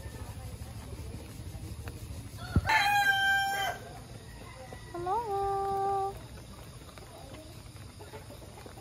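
Rooster crowing twice: a higher-pitched crow about a second long, then a lower one that rises at the start and holds level for about a second. A sharp knock comes just before the first crow, over a steady low background rumble.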